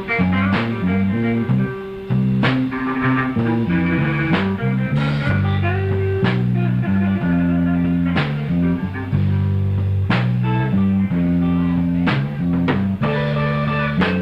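Live blues band playing a slow instrumental passage: guitar over a drum kit, with a drum backbeat landing about every two seconds.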